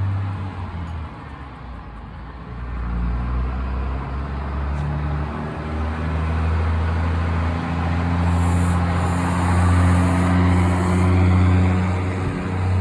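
Steady low machine hum, with a few short hisses of compressed air about two-thirds of the way in: air being blown through a small-engine carburetor's main jet to clear it.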